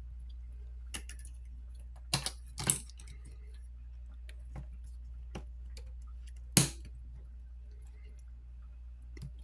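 Small, irregular clicks and taps as a part is pressed and prodded into a phone's frame and won't seat. The sharpest click comes about two-thirds of the way through, over a steady low hum.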